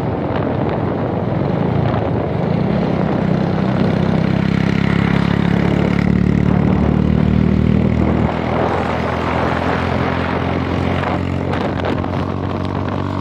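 Yamaha motorcycle engine running steadily at highway speed, with wind noise over the microphone. The engine note drops abruptly about eight seconds in.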